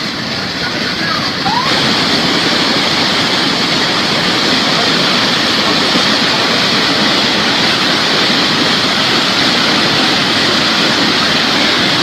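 Floodwater rushing in a steady, loud rush of water, stepping up in level about two seconds in and then holding steady.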